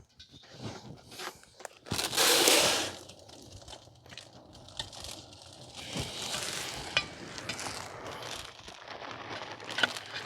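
Shelled corn poured from a feed sack into a deer feeder: a loud rush of grain about two seconds in, then softer rustling and crinkling of the sack with scattered clicks.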